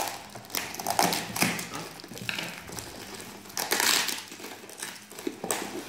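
Packing tape and plastic wrapping on a cardboard parcel being cut with scissors and torn off by hand: scratchy ripping and crinkling in several bursts, loudest about a second in and again around four seconds.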